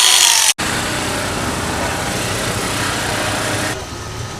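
A loud power tool runs briefly and cuts off abruptly. It is followed by a motorcycle engine running steadily, a low hum under a wash of noise, which drops in level near the end.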